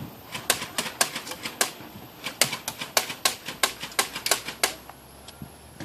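BB gun fired over and over, a quick run of sharp clicks several a second, with a short pause about two seconds in, stopping shortly before the end.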